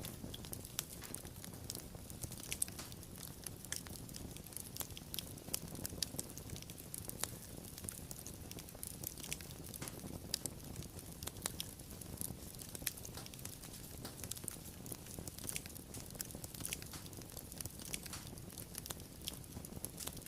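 Wood fire crackling: many sharp, irregular pops and snaps over a steady low hiss of the burning.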